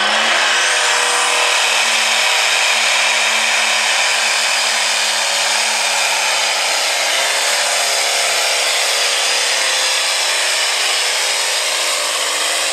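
Heavy super stock pulling tractor's turbocharged engine running flat out under full load as it drags the weight sled down the track. The engine note climbs in the first second, with a high whine rising above it, then holds high, sags a little around the middle and picks up again near the end.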